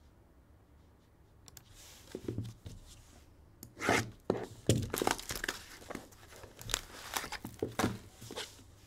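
A sealed Panini One football card box being torn open: its wrapping and seals ripping and crinkling in a run of sharp, irregular crackles. The crackles start about two seconds in and are loudest around the middle.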